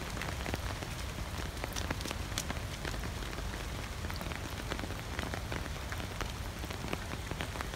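Steady rain: an even hiss dotted with many sharp, close raindrop taps.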